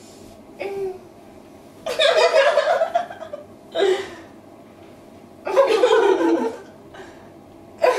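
Two women laughing together in several bursts, each about a second long, with short quiet breaks between them. This is laughter put on deliberately as a performance.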